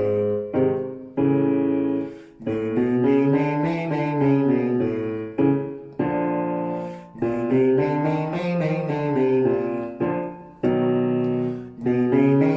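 Piano playing a vocal warm-up exercise pattern: a run of notes stepping up and down, then a held chord, repeating about every four to five seconds.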